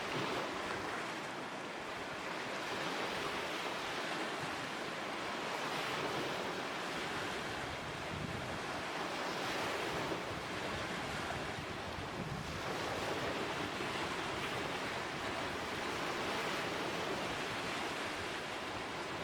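Lake waves washing and splashing against the shore in a steady wash of water that swells every few seconds.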